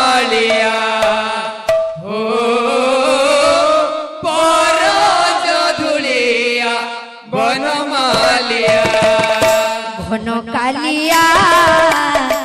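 Sankirtan singing: male voices chant a devotional song in long, drawn-out phrases with short breaks between them, over a hand-played barrel drum. The drum strikes grow denser from about two-thirds of the way through.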